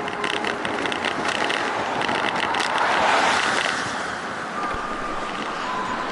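Wind rushing over the microphone and tyre noise from a recumbent trike rolling along a paved road at about 14 mph, with a car going by in the other direction. The rush swells briefly about three seconds in.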